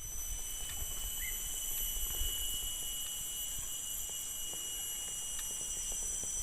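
Forest insects, such as cicadas or crickets, droning steadily in several high, unbroken tones, over a low rumble with scattered light clicks.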